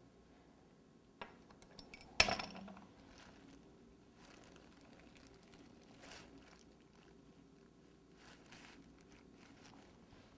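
Quiet handling sounds of fondant and small decorating tools on a work surface: a small click about a second in, a sharper tap just after two seconds, then faint scattered rustles.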